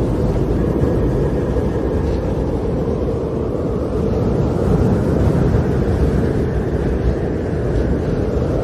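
Storm wind in a snowstorm, blowing as a steady, deep, even rush that is heavy in the low end with little hiss above it.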